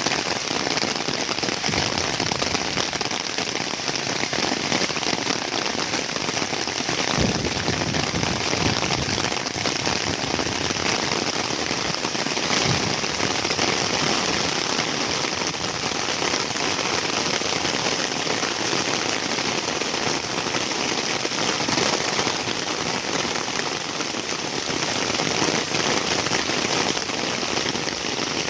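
Heavy rain falling steadily in a dense, even patter. Two brief low thumps stand out, about seven and thirteen seconds in.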